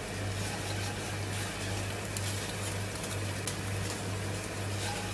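Electric grill closed on chicken: a steady low hum with an even, faint sizzling hiss and a few light ticks.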